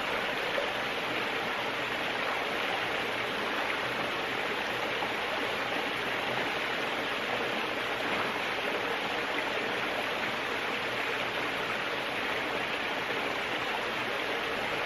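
Creek water running steadily over a small rocky cascade into a pool, an even rushing with no breaks.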